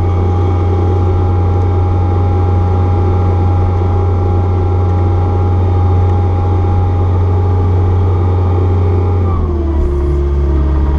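Caterpillar 236B skid steer's diesel engine running steadily at high revs; about nine seconds in its note drops to a lower speed.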